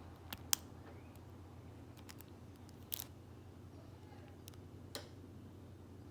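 Sharp, small metallic clicks of a lock pick and tension wrench working the pins of a Master Lock No. 570, a handful of separate clicks with the loudest about half a second and three seconds in, over a steady low hum.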